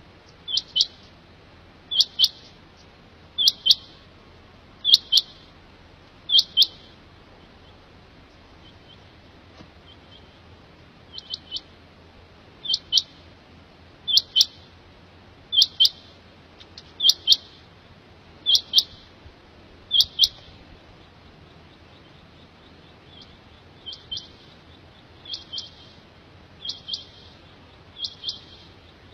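Quail (batair) calling: short, sharp, high-pitched double notes repeated about every one and a half seconds, with a break of a few seconds twice, the last calls fainter.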